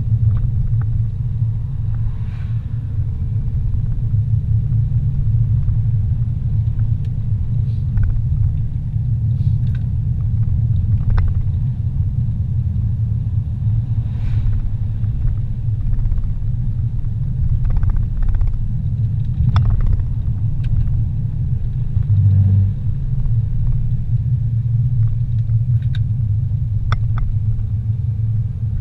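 Car driving on a paved road, heard from inside the cabin: a steady low rumble of engine and tyre noise, with a few faint clicks and one brief low thump about two-thirds of the way through.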